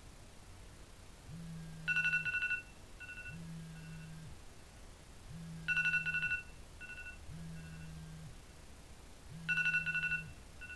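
Mobile phone alarm going off on the bed: a rapidly pulsing two-note electronic tone about every four seconds, each followed by two fainter short beeps. Under it, the phone's vibration motor buzzes against the mattress in roughly one-second bursts about every two seconds.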